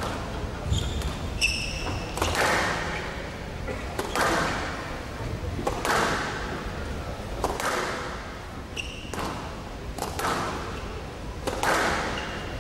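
Squash rally: the ball is struck by rackets and smacks off the walls every one to two seconds, each hit ringing in the glass court. Short high squeaks of sports shoes on the court floor come about a second in and again near the middle.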